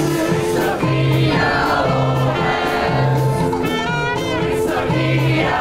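Music: a song sung by several voices over a band accompaniment, with a low bass note about once a second.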